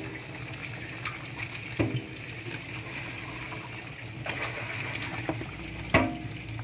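Fish broth simmering in a stainless steel pot with a steady bubbling hiss, and a ladle knocking against the pot four times as it pushes fish pieces down into the broth.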